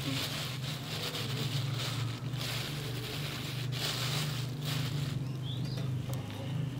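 Plastic bag rustling as it is handled, stopping about five seconds in, over a steady low hum; a bird chirps once near the end of the rustling.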